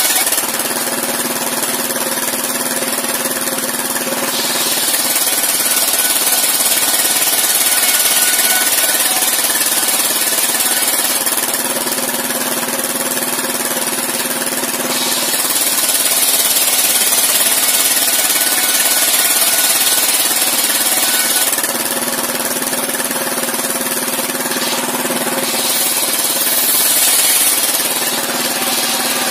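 Circular sawmill running, its blade driven by a stationary engine that chugs steadily throughout. In long stretches a high, noisy rasp rises over the engine as wooden planks are ripped lengthwise through the spinning blade, then eases off between cuts.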